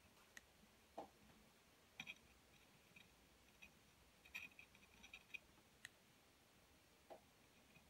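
Near silence with faint, scattered clicks and light scrapes of small parts and wires being handled while soldering leads to a DC charging jack.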